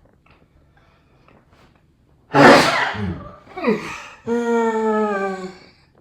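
A loud sneeze bursts out about two seconds in after a quiet breath-in, followed by a long, slightly falling 'aah', as if building up to the next sneeze.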